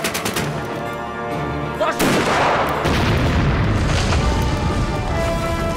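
Film battle sound effects over a music score: a few gunshots near the start, then about two seconds in a loud explosion whose blast rumbles on.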